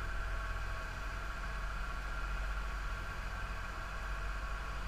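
Motor boat's engine running steadily under way, a constant low rumble and hum, mixed with the rush of wind and water.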